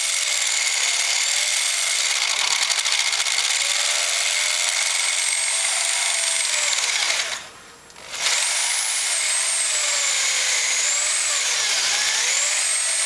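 Electric drill boring into the head of a damaged crosshead screw with a large bit, making a centre start to drill the head off. The whine wavers in pitch as the load changes, stops for about a second about halfway through, then starts again.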